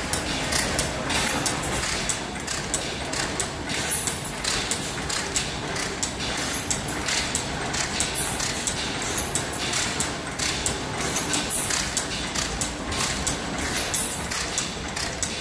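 Restored 10 horsepower Lambert stationary gas engine running, its flywheel turning, with a busy mechanical clatter of clicks from its moving parts.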